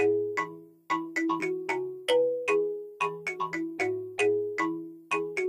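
Background music: a light, ringtone-like melody of short notes that each ring and fade, with no drums.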